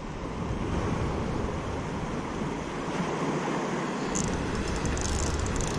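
Steady wind buffeting an action-camera microphone over gently lapping water, with a few faint crackles near the end.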